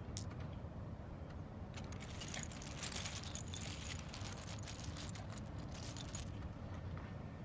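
LEGO train running on its plastic track: a steady low hum with a dense, fast clicking rattle of wheels over the track from about two to six seconds in.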